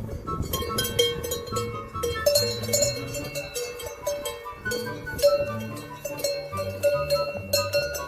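Background music: a melody of held notes over a stepping bass line, with light bell-like clinking percussion.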